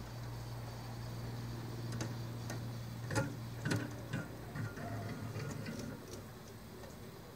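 Merkur metal-kit model cable car hauled up its rope: a steady low hum that weakens near the end, with a run of irregular sharp clicks and ticks from about two to four and a half seconds in.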